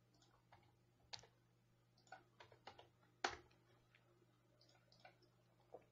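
Faint, scattered clicks of a computer mouse and keyboard, about eight over a few seconds, the loudest a little past three seconds in, over near silence with a faint steady hum.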